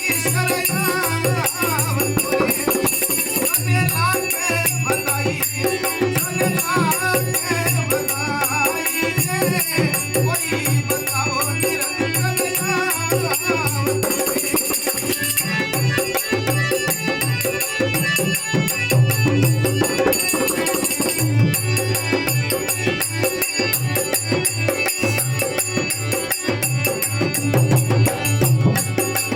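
Folk devotional music: continuous rapid jingling percussion and a steady low drum beat under a wavering melody line.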